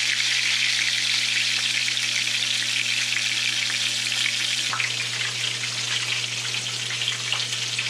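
Batter-coated razor clam pieces sizzling and crackling steadily in hot oil in a skillet, pan-frying over medium heat.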